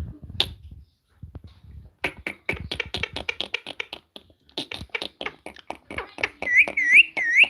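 A parrot whistling three short swooping notes, each dipping then rising, near the end. Before them comes a quick run of sharp clicks starting about two seconds in.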